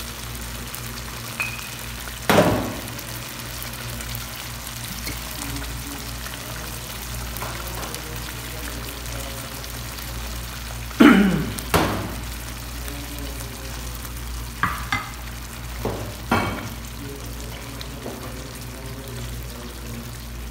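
Tomato sauce cooking in a pan with a steady sizzle, while a spoon stirs it and knocks against the pan: a sharp knock about two seconds in, two more around eleven seconds, and several lighter ones a few seconds later.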